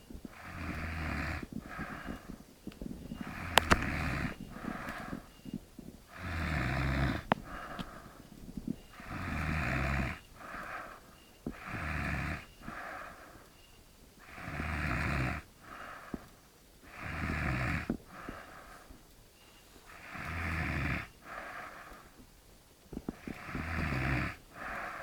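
A man snoring heavily in deep sleep: a rough, rattling snore about every two and a half to three seconds, nine or so in all, each followed by a shorter, softer breath.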